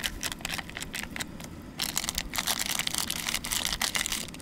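Crinkling and crackling of a plastic ramen soup-powder packet as the powder is shaken out over a pot of water, thickening into a dense crackle about two seconds in.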